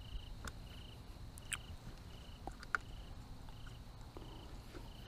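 A cricket chirping steadily in short evenly spaced chirps, about three every two seconds, with a few faint clicks and taps from a crossbow being handled.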